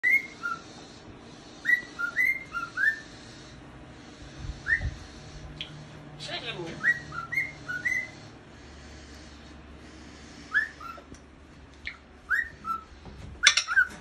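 Cockatiel whistling its song: short clear whistled notes in quick groups, each note swooping up and dropping back, with pauses between the groups. The loudest run of notes comes near the end.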